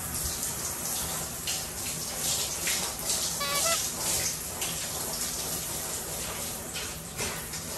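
Handheld shower head spraying water onto a Shiba Inu's coat as it is washed, a steady hiss of water. A short high-pitched squeak comes about halfway through.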